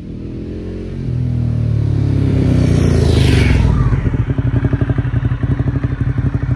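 Motorcycle engine approaching and passing close by, loudest about three seconds in. It then runs on with a fast, even pulsing exhaust beat.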